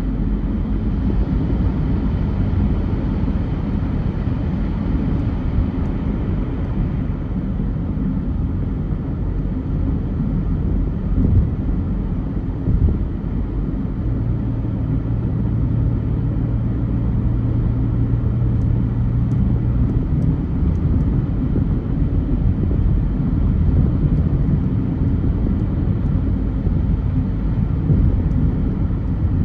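Car driving in traffic: a steady low rumble of engine and road noise. A steady low hum joins it for about six seconds in the middle.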